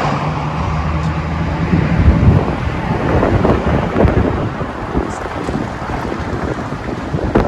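Wind buffeting the microphone in loud, rumbling gusts, with a steady low vehicle engine hum fading out in the first couple of seconds.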